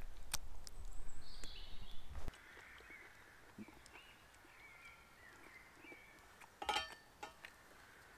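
Quiet woodland ambience with birds chirping. For the first two seconds there is a low rumble with a few sharp clicks, which cuts off suddenly. A short, loud, pitched call comes about six and a half seconds in.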